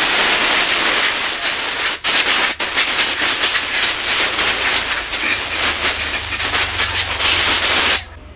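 Loud, steady hissing noise that cuts off abruptly near the end, broken twice for an instant about two and two and a half seconds in.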